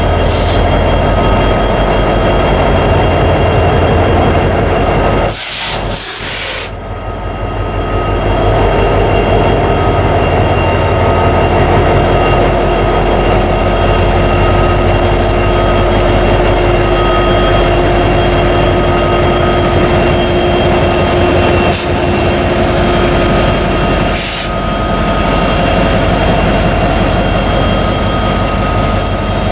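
A train passing close by: wheels rolling on the rails with a fast rhythmic clatter and a steady, high, thin ringing tone above it. The sound runs loud and continuous, dipping briefly twice.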